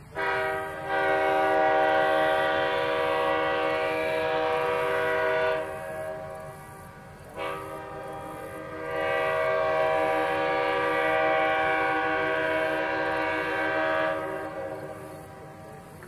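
Air horn blown in two long steady blasts, the first about five and a half seconds and the second about seven, separated by a short pause.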